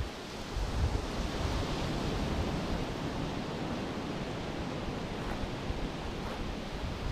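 Steady sea surf washing onto a pebble beach, with low wind rumble on the microphone.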